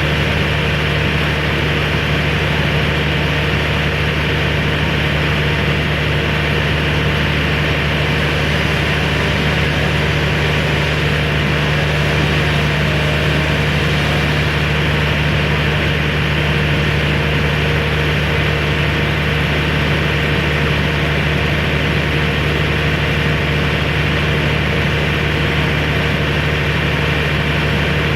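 Engine of heavy tree-work equipment running steadily at one constant speed, a low even drone with no change in pitch or load.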